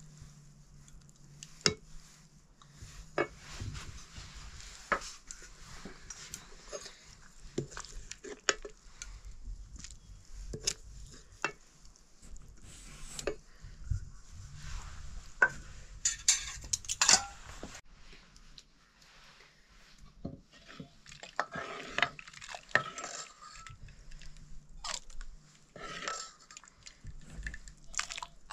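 Steel ladle clinking and scraping against stainless steel plates and a cooking pan as rice and chicken curry are served. Scattered sharp knocks, with a louder run of clinks about halfway through.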